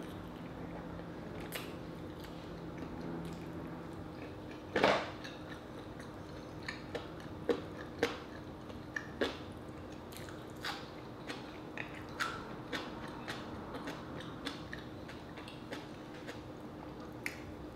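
Close-miked eating sounds of a person chewing rotisserie chicken with kimchi and rice: wet mouth clicks and smacks scattered irregularly, the loudest about five seconds in.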